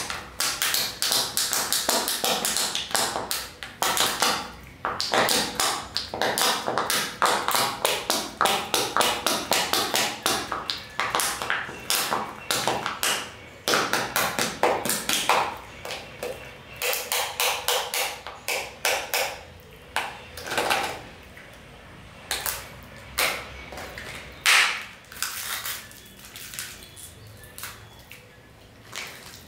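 Crinkly foil wrapper being torn and peeled off a plastic toy surprise egg: a dense run of sharp crackles and rustles, thinning out in the second half to separate clicks and snaps as the plastic capsule is handled and opened.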